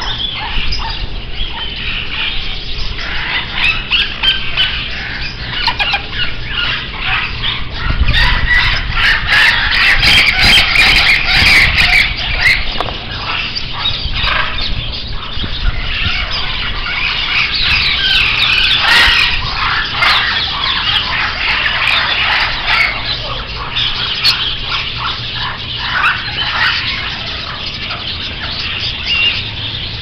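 Many caged parrots and small cage birds calling at once: a dense, continuous chatter of short chirps and squawks, loudest about eight to twelve seconds in.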